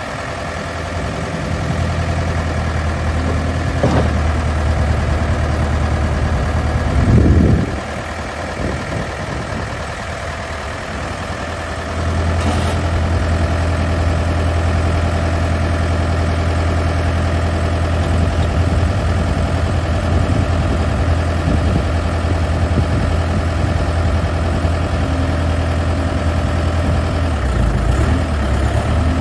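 Diesel engine of a 2007 Case 580SM Series 2 loader backhoe running. There is a brief louder surge about seven seconds in, and the engine drops to a lower, quieter note for a few seconds. About twelve seconds in it steps up to a steady, stronger running speed.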